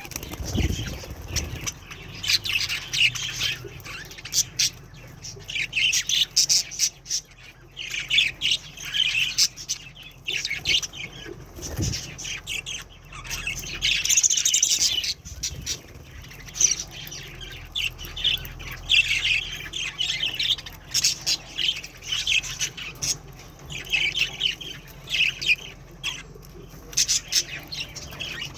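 Pet budgerigars chattering and squawking in quick repeated bursts of high calls, with short sharp clicks among them.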